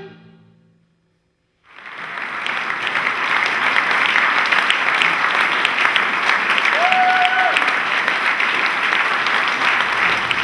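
The last held note of a chamber ensemble dying away, a moment of silence, then the audience breaking into steady applause.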